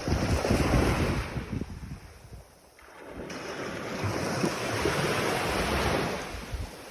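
Atlantic Ocean surf washing onto the beach: one wave surges and falls away to a brief lull, then a second builds and fades. Wind buffets the microphone with a low rumble.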